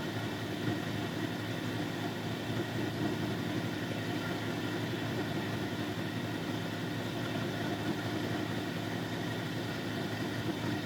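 Electric motor of a lapidary grinding machine running steadily, an even hum.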